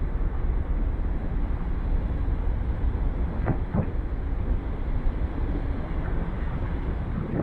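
Steady low rumble of a car ferry under way at sea, with two faint clicks about halfway through.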